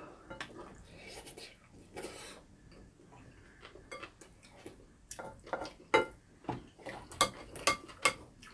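Spoons and chopsticks clicking and scraping against ceramic bowls while scooping fried rice, in scattered short clicks that come more often in the second half.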